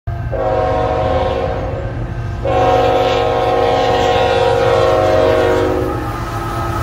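Air horn of a CN ET44AC freight locomotive sounding for a grade crossing: two long blasts, the first about two seconds, the second starting about two and a half seconds in and lasting about three and a half seconds, over the steady low rumble of the train.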